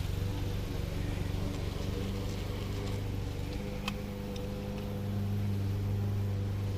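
Steady low hum of an engine running, growing a little louder from about five seconds in, with a couple of faint clicks near the middle.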